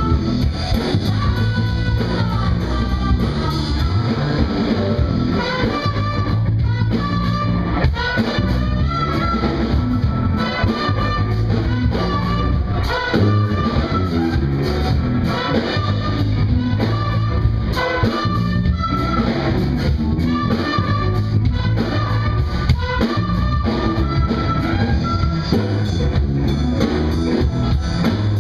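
Live jazz improvisation by a small band: a trumpet plays a melodic line over electric bass and drums with cymbals.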